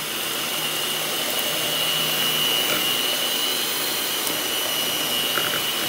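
Mondial electric hand mixer running steadily, its beaters churning thick doce de leite to make it smoother, with a steady high whine over the motor's whir.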